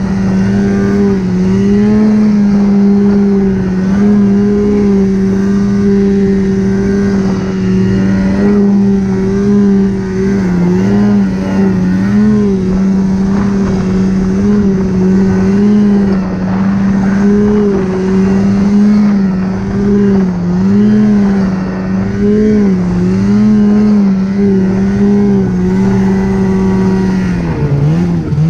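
Snowmobile engine running at a steady high speed while riding along a trail, its pitch holding level with small dips and rises as the throttle is eased and opened again.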